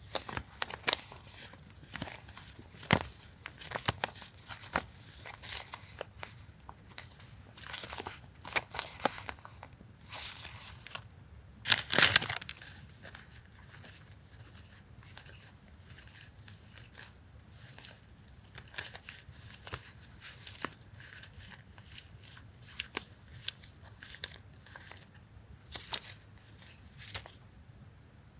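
Paper and packaging being handled: intermittent crinkling and rustling with short tearing sounds, loudest about twelve seconds in.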